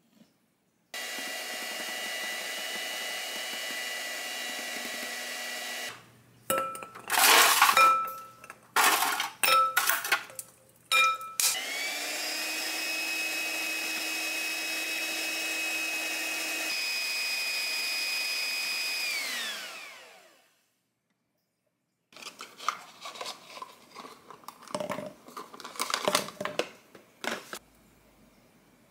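A small electric kitchen appliance motor runs steadily for about five seconds, then is pulsed in a series of short loud bursts. It then runs again for several seconds, its pitch rising as it starts and falling as it winds down to a stop. After a short pause there is a clatter of light knocks.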